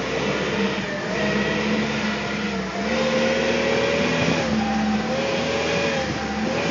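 Forklift driving, its motor running with a steady hum that shifts up and down in pitch a few times as it moves along.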